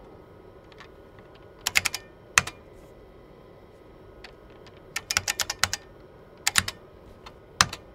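Keystrokes on a computer keyboard: short clusters of sharp key clicks, a few together about two seconds in, a quick run of typing about five seconds in, and a single hard keystroke near the end.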